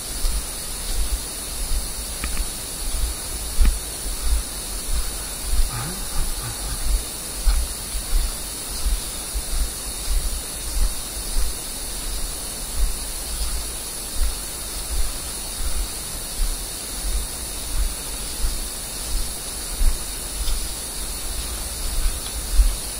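Footsteps of someone walking over boggy forest ground, heard as regular dull low thuds about one and a half a second, over a steady hiss from the recording.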